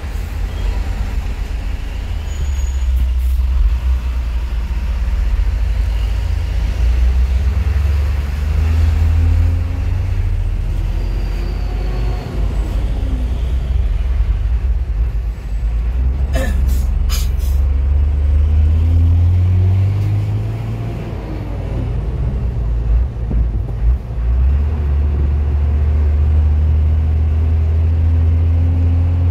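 Hino truck's diesel engine heard from inside the cab while driving: a steady low rumble whose pitch rises and falls a few times as the truck pulls away and gathers speed. Two short sharp sounds come about halfway through.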